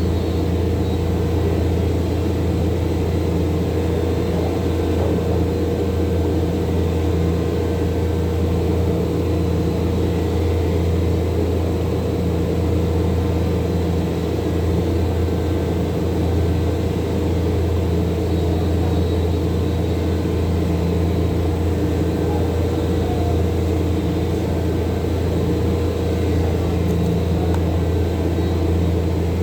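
A machine's motor running steadily, a low hum with a constant higher whine that does not change.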